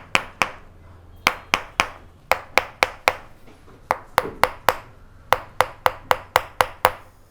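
Spring-loaded chiropractic adjusting instrument firing over and over, sharp separate clicks at about four a second in short runs with brief pauses, worked over the upper back to inhibit the dorsal scapular nerves behind a trapezius spasm.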